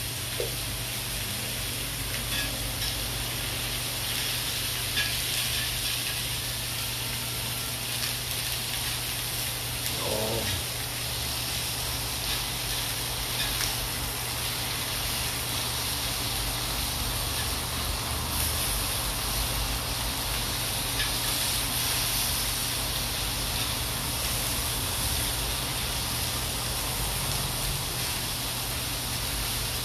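Meat skewers sizzling steadily on a hot grill pan.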